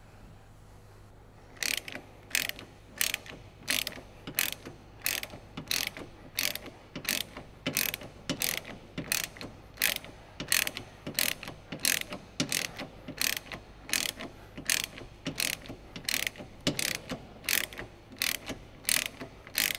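Hand socket ratchet clicking as it tightens the sway bar bushing mount bolts: a steady rhythm of short click bursts from the pawl on each back-stroke, about one to two a second, starting about two seconds in.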